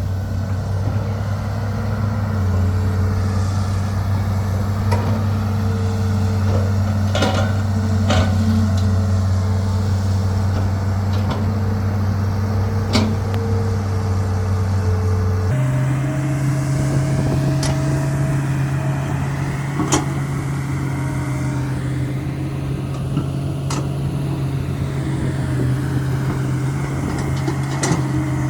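Hitachi hydraulic excavator's diesel engine running steadily under load, its note stepping abruptly higher about halfway through. Occasional sharp knocks and cracks ring out over the engine.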